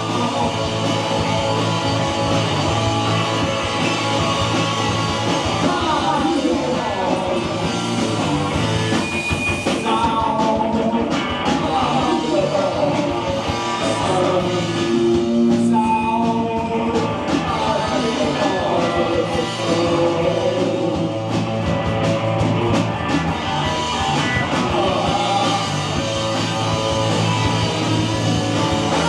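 A rock band playing live, with drums, amplified guitars and a singer's voice over the full band.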